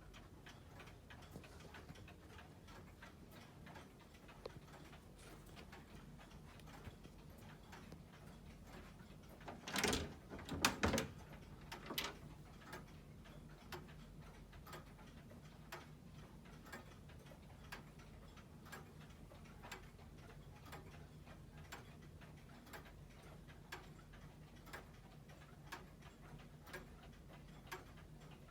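Circa-1909 Herschede grandfather clock ticking steadily, about one tick a second. About ten seconds in, a short cluster of louder knocks stands out above the ticking.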